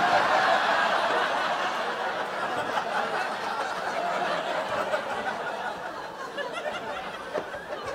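Live audience laughing, loudest at the start and slowly dying down.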